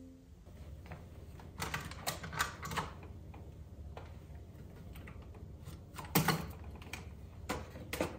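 Irregular clicks and knocks of things being handled: a quick cluster about two seconds in, then a louder knock about six seconds in and another near the end, over a low steady hum.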